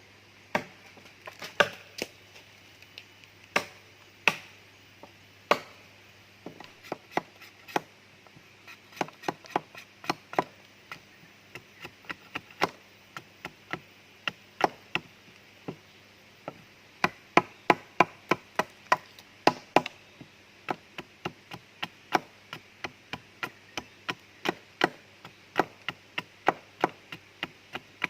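Repeated chopping strikes of a blade, sparse at first and then in quick runs of about three or four strikes a second.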